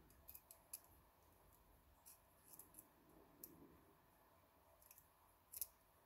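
Faint, scattered small metallic clicks of an Eclipse 6-lever picking tool's wires working the levers inside a brass lever lock, the loudest click a little before the end.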